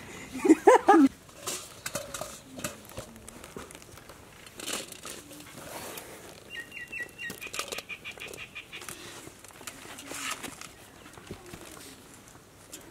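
A burst of laughter at the start, then dry winged termites rustling and pattering on a flat woven bamboo winnowing tray as they are sifted by hand, in scattered light rustles and ticks.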